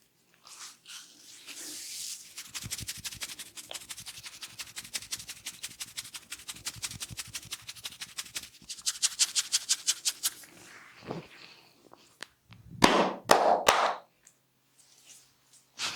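Rapid, even percussive massage strokes tapping on the head or shoulders, about six or seven a second for several seconds. Near the end come a few short, loud, rough bursts.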